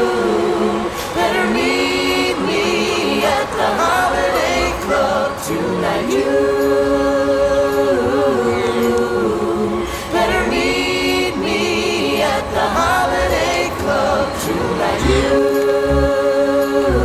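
Music: several voices singing together in close harmony, holding long chords that change every couple of seconds.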